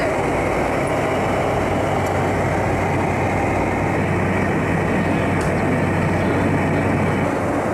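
Steady roar inside a jet airliner's cabin in cruise: engine and airflow noise, with a constant low hum beneath it.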